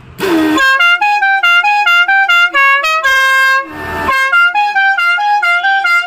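A Stebel six-trumpet musical air horn playing its tune. Its trumpets sound one after another in quick stepping notes, with a short hiss before the tune begins and again a little over halfway through, as the tune starts over.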